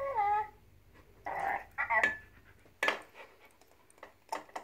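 A dog nosing a small ball along the floor and against furniture: a few sharp clicks and knocks about two seconds in, just under three seconds in and near the end. Short high-pitched voice sounds come at the start and about a second and a half in.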